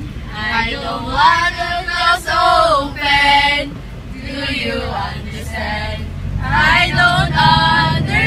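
Female and male voices singing together with long held notes, over the low hum of a van's engine.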